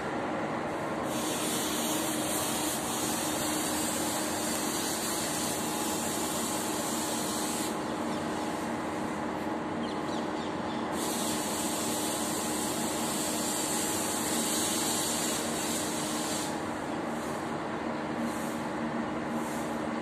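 A steady low background hum with a high hiss over it. The hiss sets in about a second in, drops out near eight seconds, returns around eleven and stops near sixteen and a half, then comes back in a few short pulses near the end.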